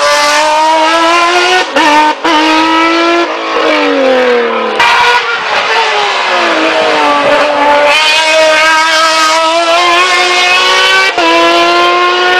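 Race car engine, from an open sports-prototype hillclimb car, accelerating hard at high revs. Its pitch climbs and drops back at each gear change, with a longer falling stretch in the middle.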